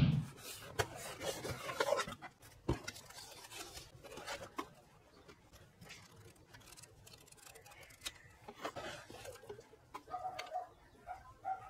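A low thump as a cardboard box is set down, then uneven rustling and rubbing of paper and cardboard with scattered clicks as the box is opened and the manual and a coiled cable are handled.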